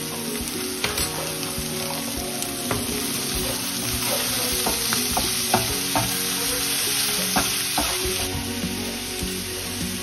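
Brussels sprouts and carrot strips sizzling in a metal frying pan while a wooden spoon stirs them, with several sharp knocks of the spoon against the pan.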